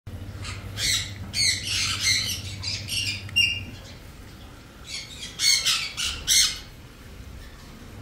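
Young green-cheeked conures giving harsh, rapid squawks in two bursts, one starting about half a second in and another around five seconds in, while being handled.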